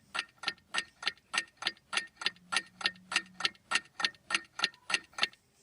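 Clock ticking steadily, about four sharp ticks a second, stopping just before the end.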